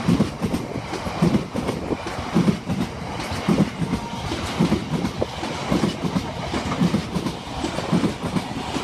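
Freight train wagons hauled by Class 66 locomotive 66 526 rolling straight through the station at speed, their wheels clattering over the rail joints in a steady rhythm of about one heavy clack a second over a continuous rumble.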